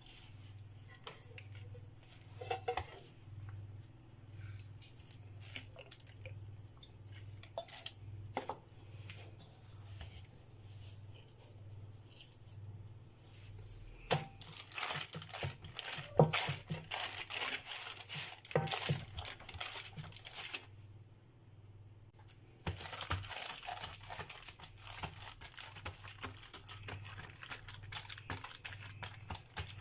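Baking paper crinkling and rustling under hands pressing and spreading dough in a pan, in two spells with a short pause between. Before that, only a low hum and a few small clicks.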